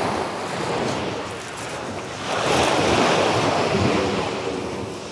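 Surf washing onto a pebble beach, swelling a little over two seconds in and fading again near the end, with wind buffeting the microphone.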